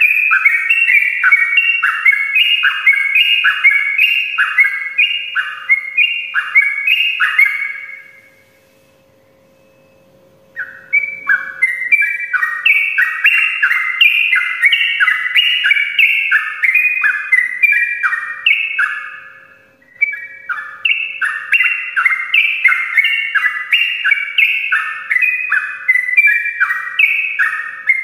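Yellow-vented bulbul (trucukan) singing a long, rapid, unbroken run of repeated whistled phrases, the 'ropel' song. It stops for about two and a half seconds roughly a third of the way in, then resumes, with another brief break about two-thirds of the way through.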